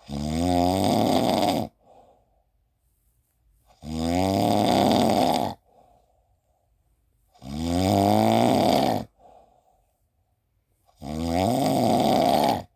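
Snoring in a steady rhythm: four long, loud snores about every three and a half seconds, each followed by a faint breath out.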